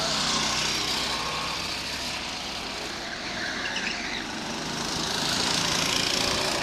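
Go-kart engines running on the track: a kart passes close by near the start and fades off, then another draws nearer and grows louder toward the end.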